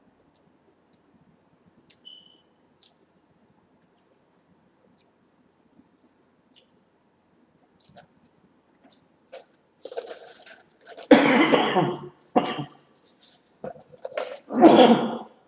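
A man coughing: a few faint clicks, then a run of harsh coughs about two-thirds in and another loud cough near the end.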